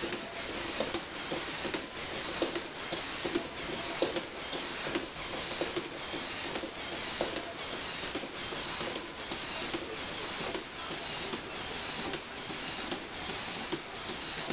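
Small Lego Power Functions electric motor whirring steadily through its gear train as a Lego Technic four-legged walking robot runs, with a regular clicking about twice a second from the stepping legs.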